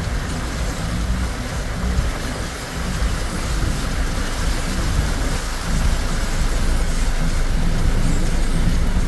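Car cabin noise while driving on a rain-soaked road: a steady low rumble of the engine and tyres on wet tarmac, with the hiss of heavy rain, growing a little louder about six seconds in.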